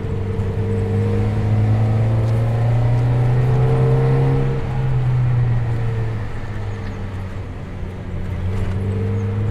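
1991 Mazda Miata's 1.6-litre four-cylinder engine pulling under throttle, its note climbing slowly, dropping about four and a half seconds in, then climbing again near the end, over steady road noise.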